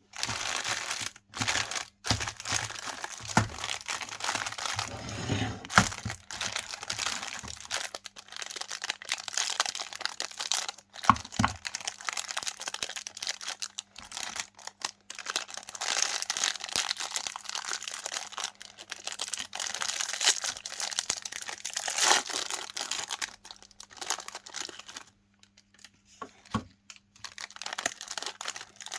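Chocolate-iced cookies and their crinkly wrappers being handled and crushed: dry crinkling and crunching in irregular spurts with sharp crackles and a few brief pauses, over a faint steady hum.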